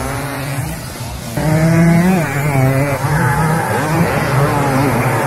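Motocross dirt bike engines revving, their pitch climbing and dropping as the riders accelerate and shift. It gets louder about a second and a half in.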